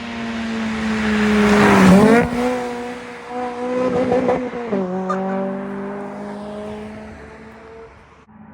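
Honda Civic driving past at speed: its engine note builds to its loudest about two seconds in and falls in pitch as it passes, steps down in pitch again about five seconds in, then fades away.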